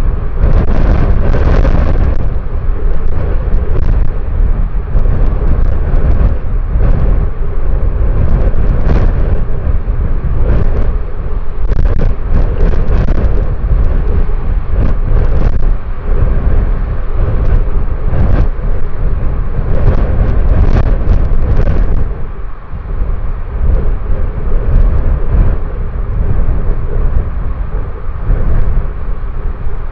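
Strong wind buffeting an outdoor microphone: a loud, continuous low rumble with gusts that rise and fall, easing briefly about two-thirds of the way through.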